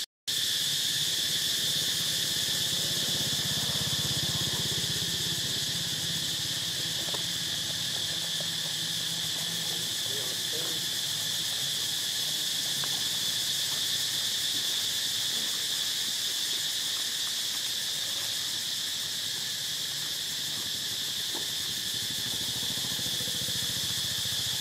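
Steady chorus of insects, a continuous high-pitched drone that holds level throughout, with a brief dropout right at the start.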